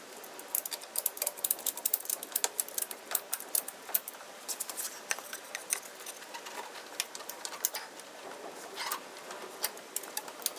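Endless ratchet strap being tightened: the ratchet clicking in quick runs with short pauses between strokes as it draws the snowmobile's rear suspension skid forward.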